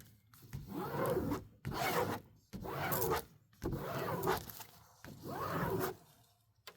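Diamond painting kit being unpacked by hand: its plastic packaging and rolled canvas sliding and rustling in five strokes about a second apart.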